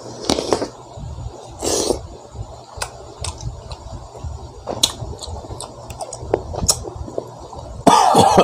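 Close-up eating sounds of raw green mango: a crunchy bite or two early on, then wet chewing clicks, with one louder, short burst near the end.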